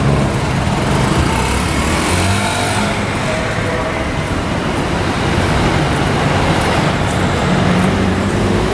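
Steady city street traffic: car engines running and tyres on the road, with a low engine hum underneath.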